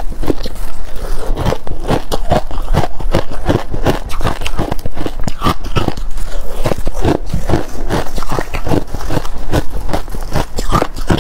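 Buckwheat ice crunching: a dense, continuous run of crisp cracks and crunches, several a second.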